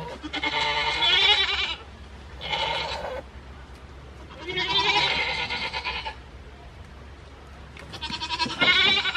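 Goat bleating four times, each call quavering in pitch. The first and last calls are the loudest, and the second is short.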